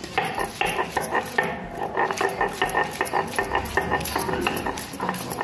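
Stone roller (batta) crushing and grinding raw mango pieces, green chillies and garlic on a ribbed stone grinding slab (sil), with repeated knocks and scrapes of stone on stone. Bangles on the grinding wrist jingle with the strokes.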